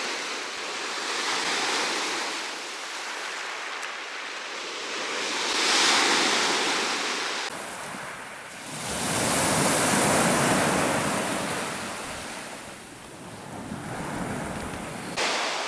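Black Sea surf breaking and washing onto the beach, rising and falling in slow surges, with wind buffeting the microphone.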